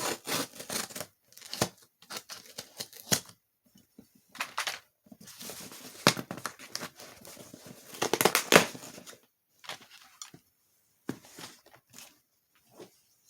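A mailed package being opened by hand: scissors snipping and paper packaging tearing and rustling in irregular bursts, with a few sharp clicks.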